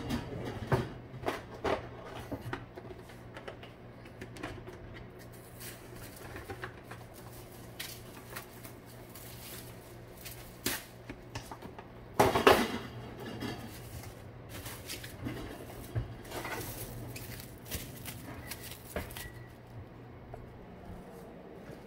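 Kitchen handling sounds: scattered light clicks and knocks of dishes and utensils over a steady low hum, with one louder clatter about twelve seconds in.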